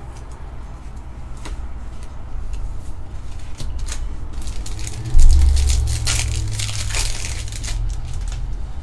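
Crinkling plastic as trading cards, clear card sleeves and pack wrapping are handled, with scattered light clicks. A dull low thump about five seconds in is the loudest sound, followed by a denser spell of crinkling.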